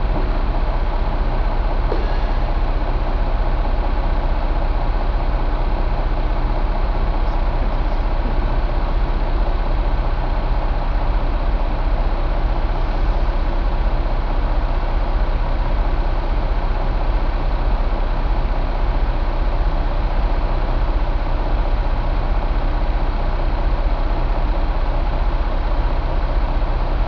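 International DT466B inline-six turbo diesel engine running steadily at a constant speed, with a deep low rumble.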